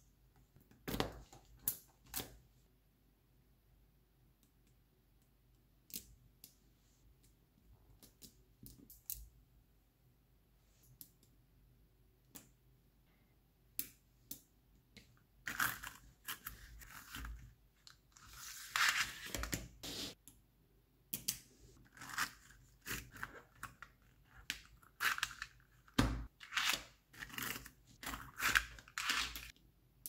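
Small neodymium magnet balls clicking sharply as they snap into place, a few separate clicks in the first half. From about halfway, a sheet of paper scrapes and rustles against the magnet panel, mixed with more quick clicks.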